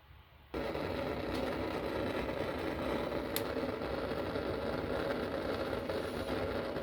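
A steady, motor-like running noise that starts abruptly about half a second in and holds at an even level, from a tool being used on the broken bolt in the engine block.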